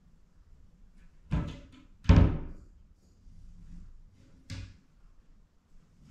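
Wooden vanity cupboard door knocking against its frame as a cat paws and pulls at it, letting it swing back shut: a thud a little over a second in, a louder one about two seconds in, and a lighter one at about four and a half seconds.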